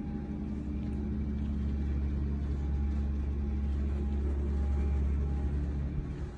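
A steady low rumble, with a faint thin hum that fades in and out above it.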